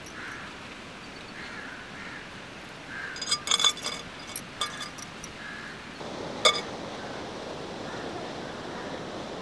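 Sharp, ringing glass clinks as a hand wearing bangles mashes boiled potatoes in a glass mixing bowl. A quick run of clinks comes about three seconds in, and one louder clink follows a little after six seconds.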